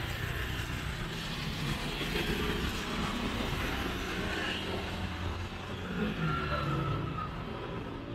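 Street traffic: motor vehicles passing on a city street, with engine and tyre noise.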